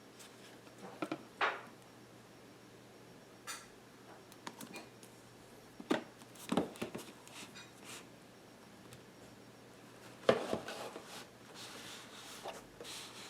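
Watch box and packaging being handled: scattered clicks and knocks, the loudest about ten seconds in, with soft rustling near the end.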